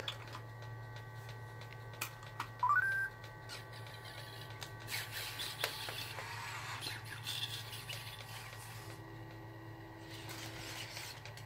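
Sony AIBO ERS-11x robot dog giving a short rising electronic beep about two and a half seconds in, answering a tap on its sensor, then the mechanical whir and small clicks of its leg motors as it moves its legs, over a steady low electrical hum.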